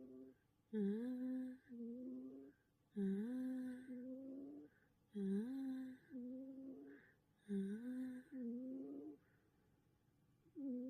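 A cat snoring in its sleep with a pitched, humming tone. Each breath is a louder snore followed by a softer one, about one breath every two seconds, four in all. A short pause comes before the next snore begins near the end.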